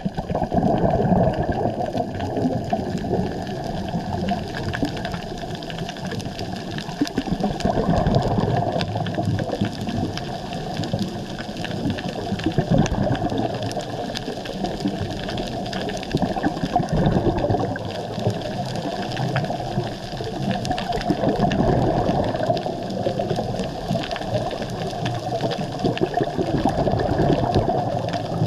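Underwater sound picked up by a camera in its waterproof housing: a muffled, continuous rush of water noise, low in pitch, swelling and easing every few seconds.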